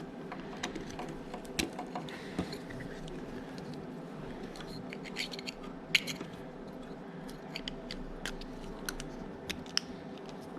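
Scattered small plastic clicks and taps of headlight wiring connectors being handled and plugged together, with a sharper click about six seconds in.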